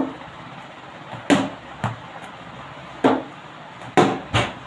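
Orange hollow plastic cricket bat knocking against a ball: about six sharp knocks, some with a brief hollow ring, two close together near the end.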